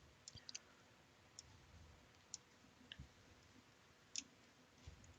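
Faint, irregular clicks and ticks of a hand screwdriver and small screws against 3D-printed plastic parts as a motor is screwed to its mount.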